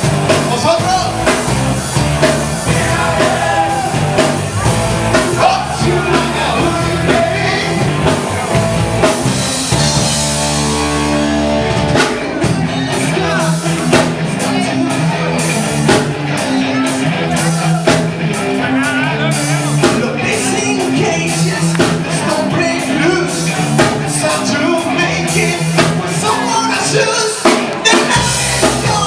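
Live rock band playing, with singing, electric guitar, bass and a drum kit keeping a steady beat.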